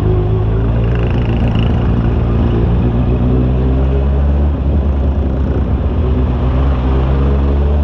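Honda CB650R's inline-four engine running steadily under the rider. About four and a half seconds in, the sound dips briefly and its pitch pattern shifts.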